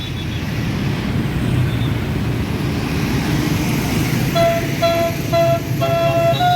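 A tour bus's diesel engine running with a low rumble. About four seconds in, its telolet multi-tone horn starts playing a tune of short beeps.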